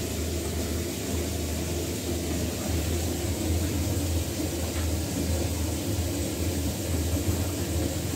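Water running steadily into a large plastic cistern tank as it is filled: a constant rushing with a low hum underneath, starting abruptly as the water is turned on.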